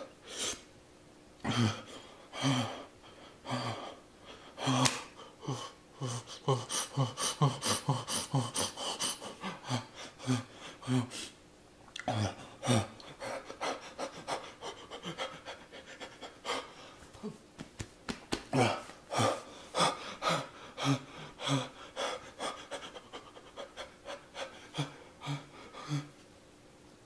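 A man panting rapidly, hissing air in and out through an open mouth with short voiced huffs, from the burn of a Paqui One Chip Challenge chip.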